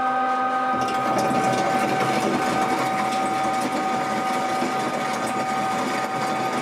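Electric grinding mill running with a steady whine while crushed lapis lazuli is poured into its hopper; about a second in, the gritty noise of the stone being ground joins in and carries on.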